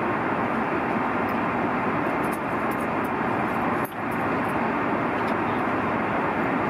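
Steady cabin noise of a jet airliner in flight, an even rushing hiss, with a few faint light ticks.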